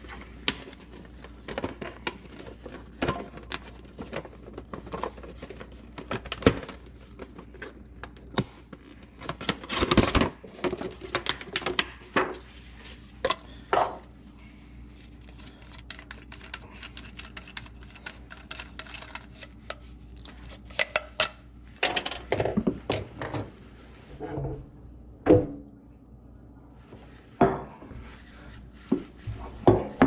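Small plastic parts and paper being handled: irregular clicks, taps and light rustles, with a quieter stretch of several seconds in the middle and a cluster of knocks after it.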